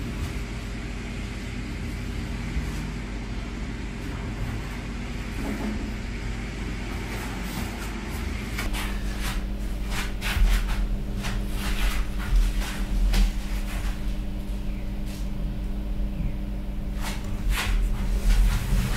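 Steady room hum, then from about halfway in a run of rustling and light knocks and clicks as a coat and handbag are handled and set down at a wooden table.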